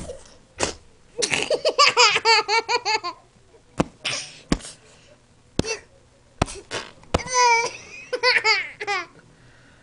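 Toddler belly laughing hard in two long bouts of rapid, high-pitched ha-ha-ha, the first starting about a second in and the second near the end. Several sharp knocks sound in between.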